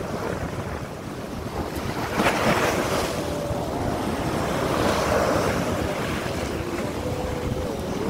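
Sea surf breaking and washing up a sandy beach, with wind buffeting the microphone. The wash swells about two seconds in and again around five seconds in.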